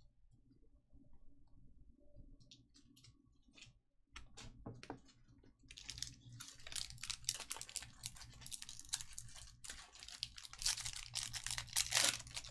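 Foil wrapper of a Topps Chrome jumbo card pack crinkling and tearing as it is pulled open by hand. A few light clicks of cards being handled come first, then dense crackling starts about halfway and grows louder near the end.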